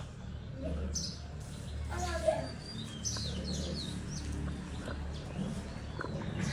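Small birds chirping in short, high, scattered calls over a steady low hum.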